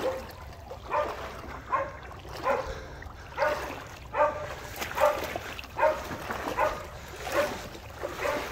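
Hunting bay dog baying steadily, about one bark a second, holding quarry it has bayed up.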